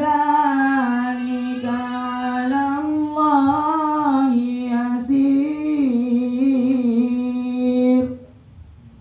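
A male Quran reciter's voice in a long, ornamented melodic phrase, drawn-out vowels bending up and down in pitch, sung into a microphone and played through a loudspeaker. It breaks off about eight seconds in.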